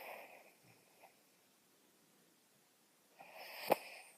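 A dog snoring while awake: one noisy breath at the start, a quiet gap of about two seconds, then a longer noisy breath near the end with a sharp click in the middle of it.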